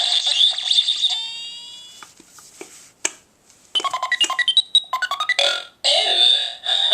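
Smasha-Ballz toy ball playing its electronic sound effects through its small speaker. It gives a noisy blast that fades out in a run of tones, then a click, a quick string of beeping notes, and three more short noisy blasts.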